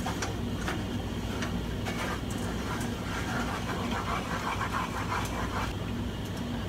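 Wooden spoon stirring thick, lumpy caramel in a saucepan, with irregular scraping and knocking against the pan, over a steady low hum. The melted sugar has partly seized into hard bits after the milk went in, and it is hard to stir.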